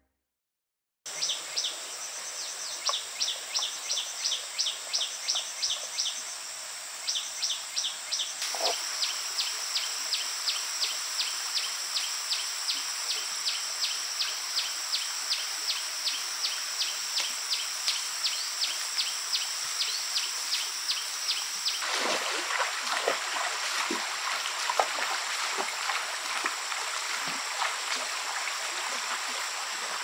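Tropical forest ambience: a steady high insect drone with a rhythmic chirping of about three or four chirps a second, broken by a couple of short pauses. About two-thirds of the way through it gives way to the rush of a shallow stream, with irregular splashes of wading through the water.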